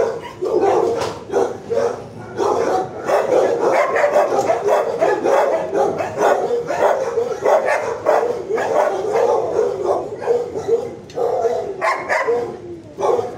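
Dogs barking continuously in a shelter kennel, one bark following close on the next.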